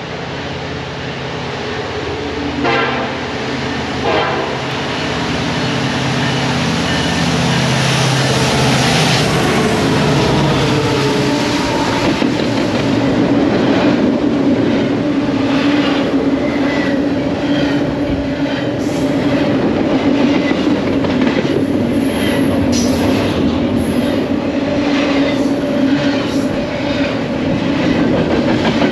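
Freight train with diesel locomotives approaching and passing, their engines running loudly and steadily, with two short loud sounds about three and four seconds in. Then a string of double-stack container cars rolls by with a steady wheel rumble and repeated clacking over the rail joints.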